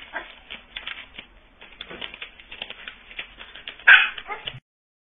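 Paper banknotes flicked through one by one as they are counted by hand: a rapid, uneven run of papery flicks and rustles. One short, louder dog bark comes just before the four-second mark.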